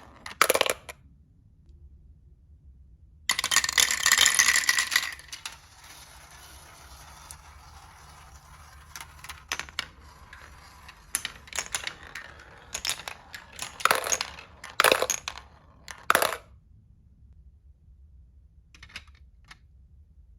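Marbles clattering and rolling along a wooden HABA marble run. About three seconds in comes a dense, loud clatter lasting about two seconds, followed by scattered clicks and knocks of marbles hitting the track.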